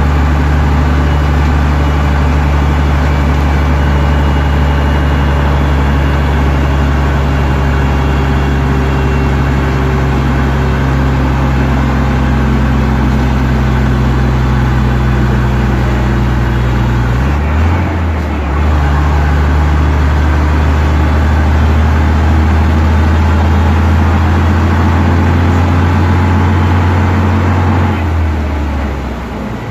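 Bristol VR double-decker bus's diesel engine running, heard from inside the lower saloon. Its engine note shifts with a brief dip about 17 seconds in, and drops away again near the end.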